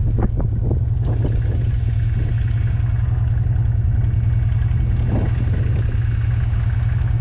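UTV engine idling steadily, a constant low hum.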